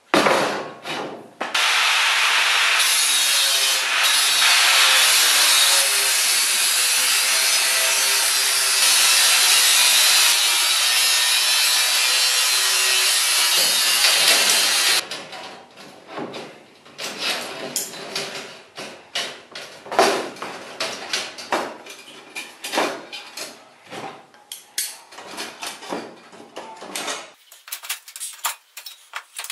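A power tool runs with a steady, loud rasping noise for about fifteen seconds, then cuts off suddenly. Scattered knocks and scrapes follow.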